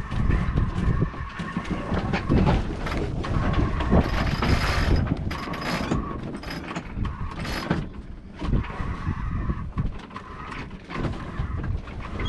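Wind buffeting the microphone aboard a sailboat while tacking: the headsail flaps as it comes across, and the sheet and winch clatter with sharp clicks and a rushing hiss about four seconds in as the line runs.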